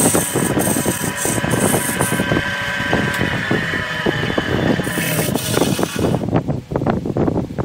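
Wood lathe running while a turning gouge cuts into a large spinning wooden blank, shavings tearing off with a rough, rapid knocking. About six seconds in the hiss drops away and the cutting turns choppier, in separate knocks.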